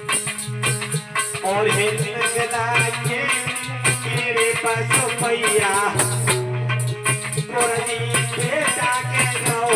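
Alha folk-ballad music: a wavering melodic line over a recurring low note, with steady jingling, shaken percussion and regular drum strokes.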